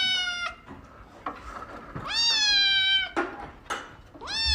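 Domestic cat meowing repeatedly, long drawn-out high meows about two seconds apart, each slightly falling in pitch.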